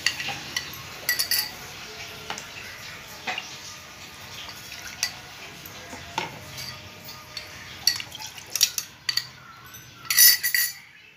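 Metal spoon clinking and scraping against a glass bowl while a custard-powder slurry is poured and scraped out of it into a non-stick kadai. The clinks come singly every second or so, with a louder cluster of clatter near the end.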